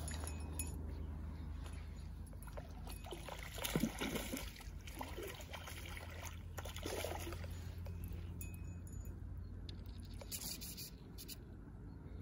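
Water splashing and sloshing at the bank as a hooked trout thrashes near the surface, in short irregular splashes with the loudest about four seconds in, over a steady low rumble.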